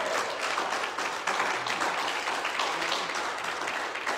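Church congregation applauding, the clapping easing down toward the end.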